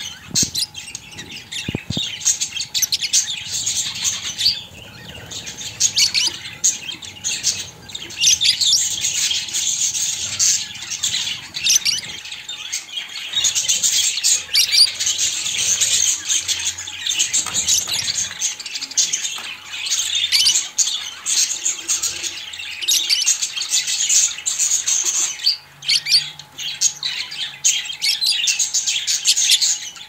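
A flock of budgerigars chattering: a dense, continuous stream of short high chirping calls from several birds at once, thinning briefly a few times.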